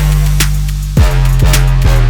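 Background music: an electronic track with heavy sustained bass and a steady drum beat.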